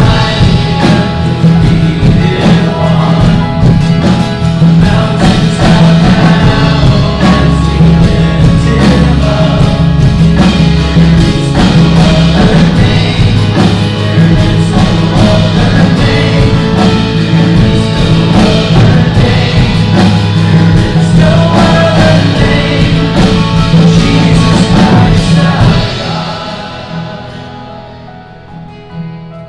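Live worship band playing a song, with electric and acoustic guitars, bass and keyboard under sung vocals. About 26 seconds in the full band drops out and the music dies down to a quieter sustained tail.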